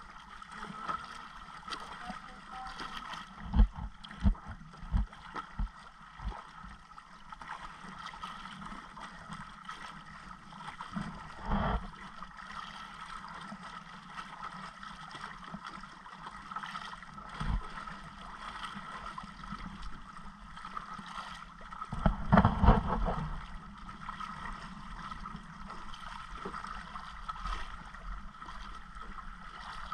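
Sea water sloshing around a small wooden outrigger boat, with dull knocks against the hull: a quick run of them about four seconds in, single ones later, and the loudest cluster about two-thirds through.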